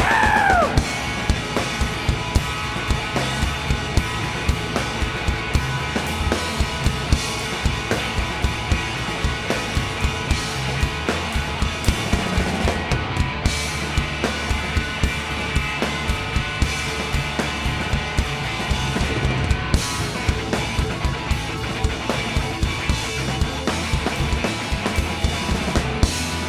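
A live rock band playing an instrumental passage: a drum kit keeps a steady driving beat under bass and guitar. About the first second holds a note sliding down in pitch.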